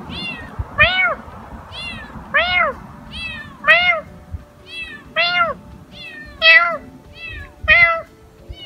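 A cat and a person imitating a cat trade meows back and forth, about a dozen in all. Each is a short call that rises and falls in pitch, alternating between a louder, lower meow and a fainter, higher one.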